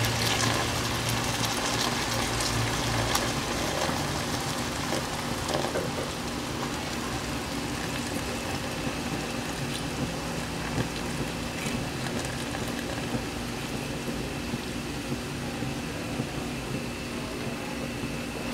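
Pony Malta malt soda poured in a thin stream into a hot pan of seared chicken pieces, hissing and bubbling steadily as it foams and boils.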